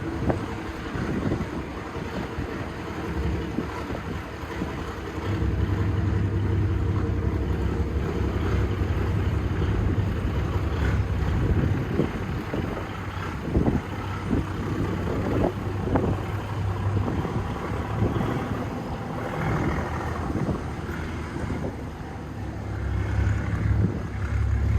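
Heavy vehicle engine running with a low drone, growing louder about five seconds in and again near the end, with a few knocks and wind on the microphone.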